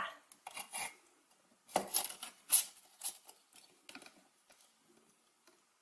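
Light handling noise: a few scattered clicks and rustles as hands fit a plastic sign pen onto a spring on a foam-board seismometer model, loudest about two seconds in.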